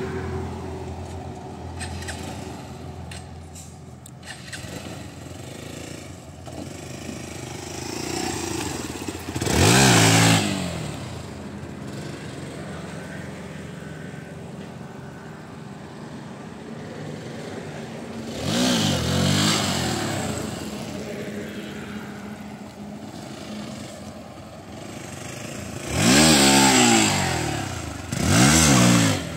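Hero XPulse 200 4V's single-cylinder engine running low and then sharply revved four times, its pitch climbing and falling each time: once about ten seconds in, once a little before twenty seconds, and twice in quick succession near the end. These are hard throttle bursts of the kind used to lift the front wheel in wheelie practice.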